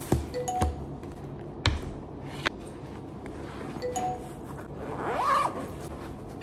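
A bag and small objects being handled and set down on a desk, with several sharp knocks. A short two-note message notification chime sounds twice, about half a second in and again about four seconds in. A brief rustle comes about five seconds in.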